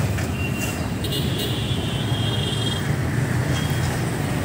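Steady low engine hum in a haze of street traffic noise. A faint high tone joins about half a second in and lasts about two seconds.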